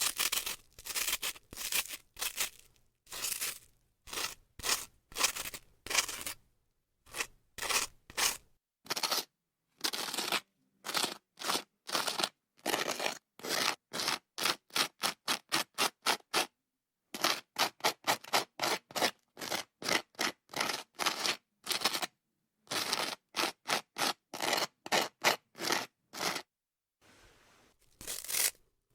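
Butter knife spreading butter on grilled French toast: a long series of short, crisp scraping strokes, about two to three a second, broken by a few brief pauses.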